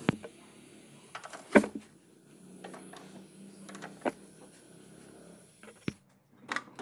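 Spanner clinking and knocking on the steering gearbox mounting bolts of a Maruti Omni: a few sharp metal clicks, the loudest about a second and a half in, over a low steady hum.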